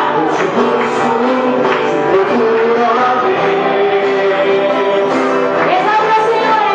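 A live gospel band playing: a male singer with acoustic guitar and backing singers sing held, sliding notes over the band, steadily.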